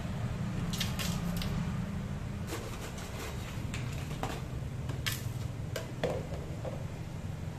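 Light, scattered clicks and knocks of a plastic container, lid and spoon being handled as ingredients are spooned into a plastic blender jar, over a steady low background hum.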